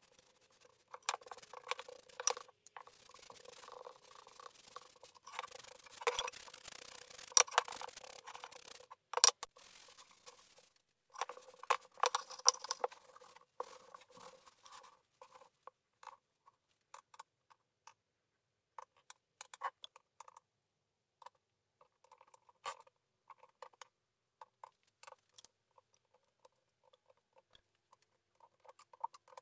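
Brush bristles and then a cloth scraping and rubbing over a wooden board as an oil finish is worked in, with scattered sharp clicks. Later come sparse, separate light clicks as small steel collets and endmills are set into the holder's holes.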